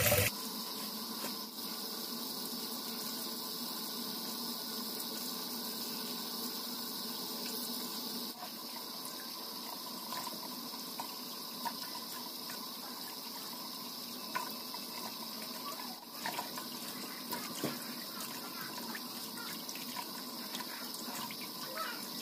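Kitchen tap running steadily into a plastic bowl in a stainless steel sink. Small splashes and knocks from leafy greens being rinsed under the stream come in the second half.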